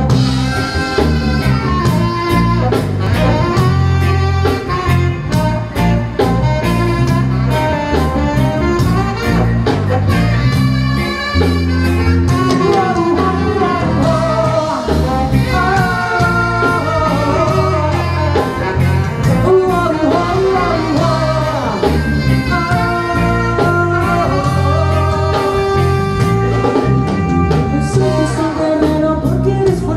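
Live band playing: electric guitar, drum kit with a steady beat, saxophones and brass, with a male lead vocal.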